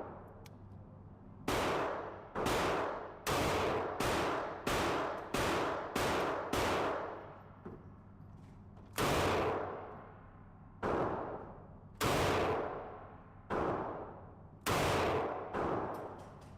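Gunshots at a shooting range. A rapid run of about eight shots in five seconds is followed by slower single shots a second or more apart, each trailing off in echo.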